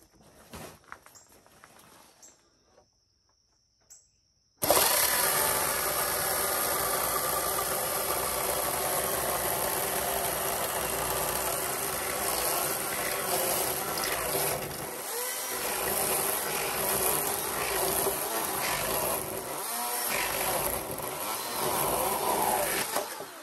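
A power tool runs steadily after cutting in abruptly about four and a half seconds in. It dips briefly twice and stops just before the end.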